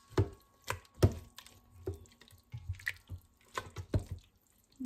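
Kitchen tongs tossing sauce-coated spaghetti in an Instant Pot's stainless-steel inner pot: irregular clinks and taps of metal on the pot's side, with wet squelching of the noodles and sauce.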